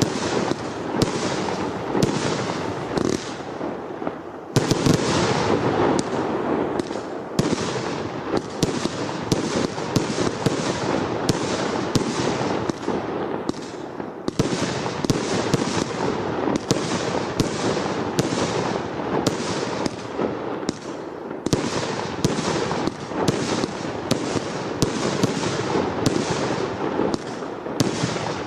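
Brothers Pyrotechnics RS3 firework going off: a rapid, unbroken string of bangs and crackles. It eases briefly about four seconds in, then picks up again.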